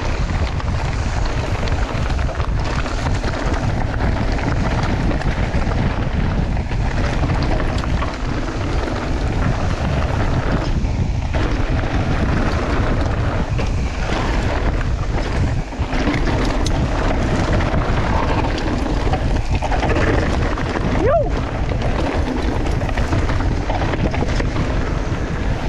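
Steady wind buffeting the action camera's microphone as a mountain bike descends a dirt trail at speed, with the tyres rolling over dirt, leaves and rock and the bike rattling.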